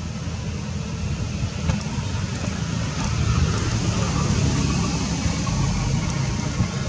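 Steady low rumble with an even hiss of outdoor background noise, a little louder from about three seconds in, with a couple of faint clicks.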